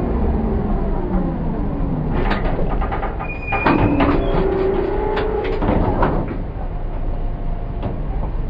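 Tatra KT8D5 articulated tram braking to a stop, its traction motor whine falling in pitch over the first couple of seconds. It is followed by a run of clunks and knocks and a steady hum while the tram stands.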